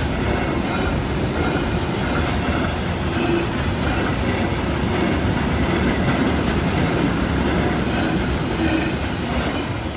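Container freight train wagons rolling past close by: a loud, steady rumble and clatter of steel wheels on the rails.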